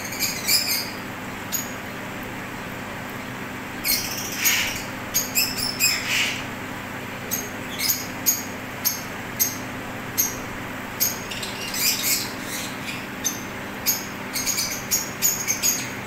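Lovebirds chirping: short, high-pitched chirps that come in quick clusters, with a steady low hum underneath.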